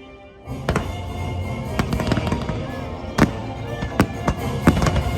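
Fireworks show: a dense run of sharp firework bangs and crackles over show music, which starts abruptly about half a second in after a quieter musical passage.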